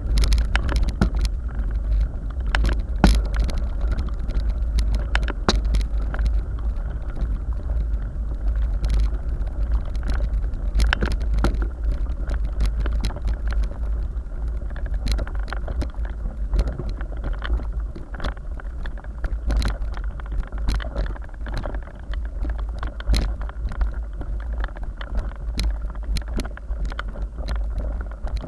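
Mountain bike rolling over a rough gravel and stone track. A constant low rumble of vibration and wind on the camera's microphone runs under frequent clicks and rattles of stones and jolting bike parts.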